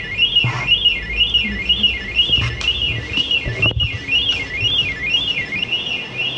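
Electronic alarm warbling without a break, one tone sweeping up and down about twice a second, from the keycard lock on a locker under a capsule bed: the lock has jammed after a card swipe that failed. A few light handling knocks are mixed in.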